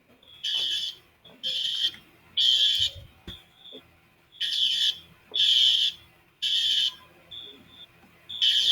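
A school fire alarm system's notification appliances sounding the temporal-three evacuation signal: three short, high-pitched blasts, a pause, then three more, with the next group starting near the end. A fainter alarm tone, out of step with them, is heard in some of the gaps.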